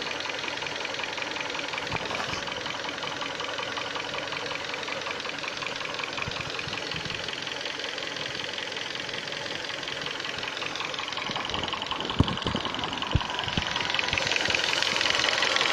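2012 Hyundai Sonata engine idling with a fast, even knocking clatter, a knock the owner later suspects may come from the gas injectors or the timing chain. There are two dull thumps shortly before the end, after which the running grows louder.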